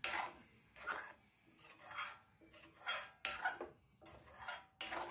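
Steel spoon scraping and clinking around a stainless steel kadai while stirring thick salna gravy, about one stroke a second.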